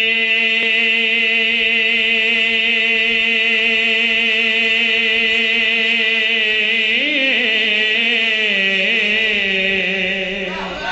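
A man chanting an Arabic invocation, drawing out one word on a long held note. About seven seconds in, the voice wavers through an ornamented turn, then settles on a slightly lower held note.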